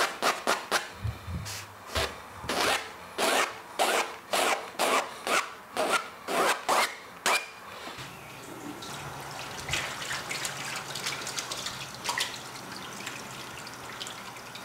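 A pencil scratching across paper in quick hatching strokes, about two a second. About eight seconds in, the strokes stop and a tap runs steadily into a washbasin as hands are washed.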